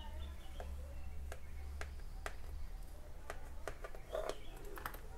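A kitchen knife cutting through soft steamed dhokla in a metal plate, making faint, irregular clicks and taps over a low steady hum.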